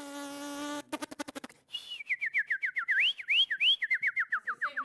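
Man's mouth-made sound effects: a steady buzzing lawnmower drone cuts off under a second in, then a quick run of about eight clicks for stones striking it. Then comes a fast series of whistled chirps, each sliding downward and the run gradually dropping in pitch with a few upward swoops, imitating a little bird.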